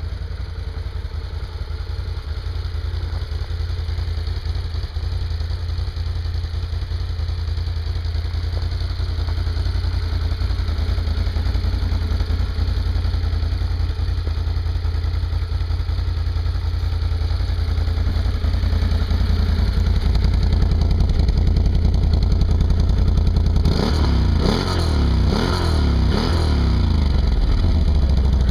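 Can-Am Renegade 1000 ATV's Rotax V-twin idling through its stock exhaust, growing slowly louder. Near the end it is blipped a few times, the pitch quickly rising and falling, then settles back to idle.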